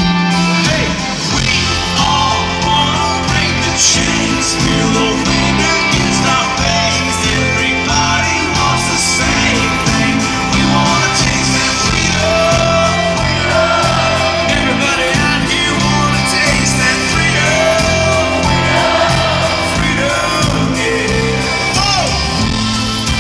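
Live country-rock band playing a song, with electric guitar, bass and drums under a male lead singer.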